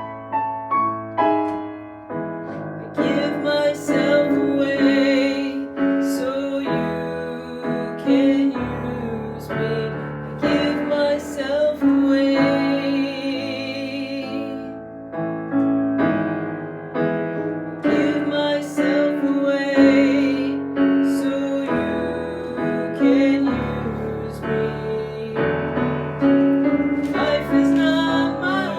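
Piano and keyboard playing a slow worship song without words, with new chords struck every second or so under a wavering held melody line.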